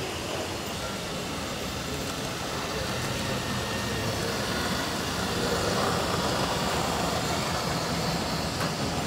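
Model freight train, a diesel locomotive hauling hopper wagons, running along the layout track: a steady running noise that grows slightly louder partway through.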